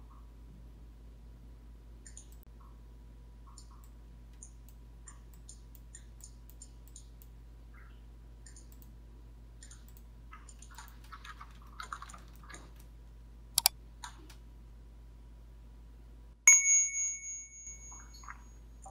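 Faint scattered computer mouse and keyboard clicks, then a loud chime sounds once about three-quarters of the way through and rings for about a second: a timer alert signalling that time is up.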